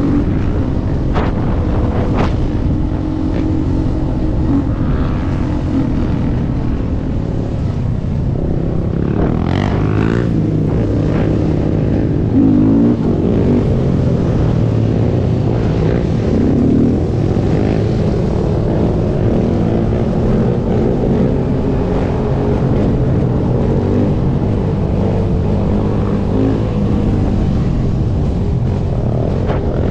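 Sport ATV (quad) engine running under throttle as it is ridden, its revs rising and falling, with a steady low rumble of road and wind noise underneath.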